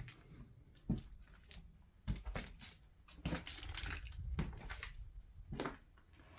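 Irregular footsteps with crunching and knocks on a debris-strewn floor, a cluster of them in the middle.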